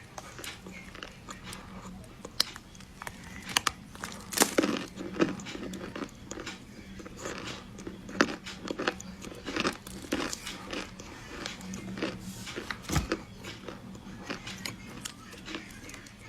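Close-up biting and chewing of a big chunk of chocolate: irregular crisp crunches and crumbling crackles, with the loudest bites about four, eight and thirteen seconds in.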